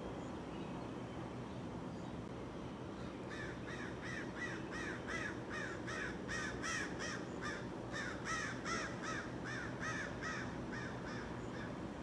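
An animal, probably a bird, giving a long run of harsh, crow-like calls, about three a second. The calls start a few seconds in and stop near the end.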